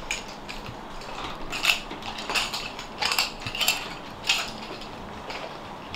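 A series of light, sharp clicks and taps, a little more than half a second apart, in a small room.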